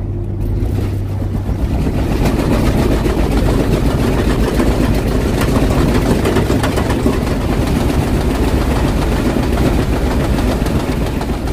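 Cabin noise of a motorhome under way: engine and road noise with a dense, continuous rattling and clattering of the coach, swelling louder about a second in.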